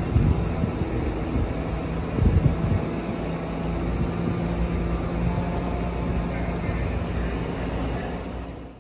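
Steady drone of large mobile cranes' diesel engines running as they hold the suspended locomotive. Two louder low bumps come in the first three seconds, and the sound fades out at the very end.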